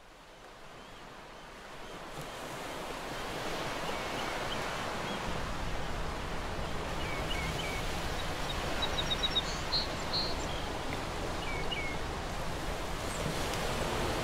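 Nature-ambience layer of a music track: a steady rushing noise of flowing water that swells up over the first few seconds, with scattered short bird chirps and a quick run of high notes about nine to ten seconds in.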